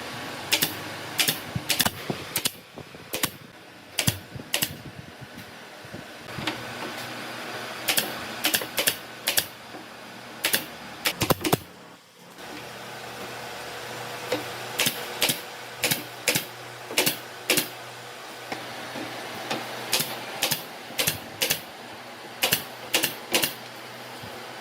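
Light, sharp taps in irregular runs, about two a second, with a short pause about twelve seconds in, over a steady background hum.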